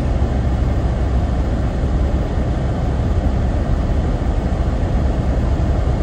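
Steady road and engine noise inside a moving car's cabin, an even deep rumble with no changes.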